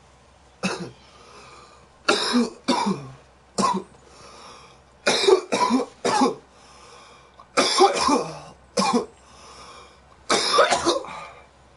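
A boy coughing repeatedly in short bouts of one to three coughs, about ten in all, with pauses of a second or so between bouts.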